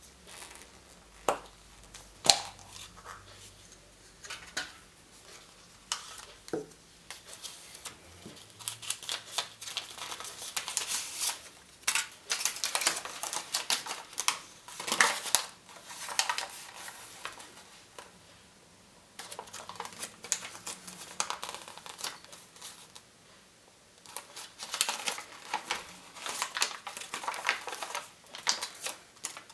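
Close-up crinkling, crackling and clicking of surprise-egg packaging, foil wrapper and plastic capsule being unwrapped and handled. A few sharp single clicks come in the first seconds, then dense crinkling runs in bursts with two short pauses.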